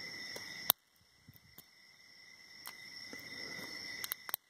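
Faint clicks of a hook pick working the pins of a Yale 50 mm padlock under tension, with one sharp click about 0.7 s in and a few more near the end. It is the light crunching of security pins, which the picker suspects may be oversetting.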